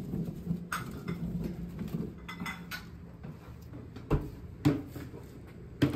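Sugarcane stalks being handled, knocking together and against hard surfaces: a few sharp knocks with lighter clatter between, over a low steady hum.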